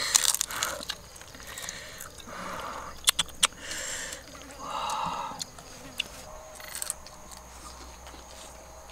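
People eating with their hands: scattered wet clicks and smacks of chewing and picking at food, with two short buzzing swells from insects in between.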